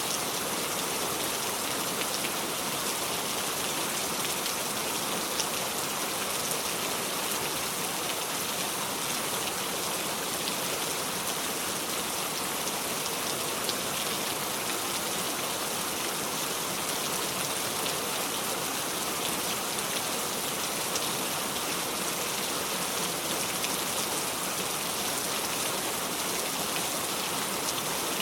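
Steady, even rain falling on a surface, a constant hiss with fine scattered drop ticks and no thunder.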